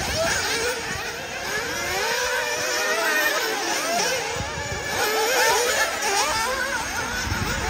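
Several 1/8-scale nitro buggy engines revving up and falling back as the buggies race around the track, their pitches rising and dropping over one another.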